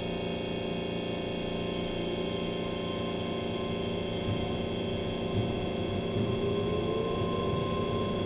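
Keihan 3000 series electric train running, heard from inside the car. The traction motor whine slowly rises in pitch as the train gathers speed after leaving a station, over the rumble of the wheels on the track.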